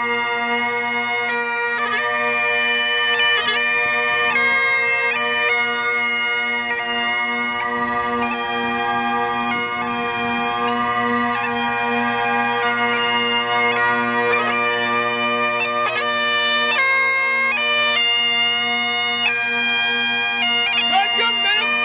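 Scottish bagpipes playing a tune: steady drones held underneath while the chanter melody steps from note to note above them.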